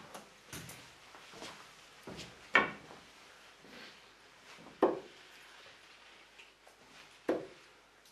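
Steel-tip darts thudding into a bristle dartboard, two single sharp strikes about two and a half seconds apart, the first a little before halfway and the second near the end. An equally loud knock comes about two and a half seconds in, with a few faint knocks between.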